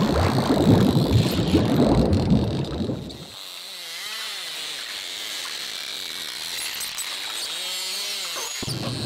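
Sea water splashing and rushing for about three seconds, then it cuts to an underwater recording in which low, wavering calls rise and fall slowly.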